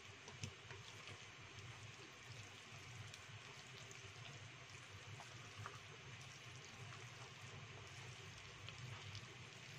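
Chopsticks stirring wet seasoned minced pork in a stainless steel bowl: faint squishing with a few light clicks against the bowl, over a low steady hum.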